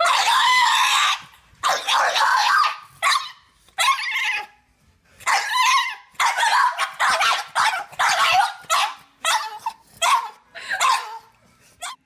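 French bulldog puppy letting out a long string of loud, harsh yowls and yelps: over a dozen short cries, each from a fraction of a second to about a second long, with brief pauses between them.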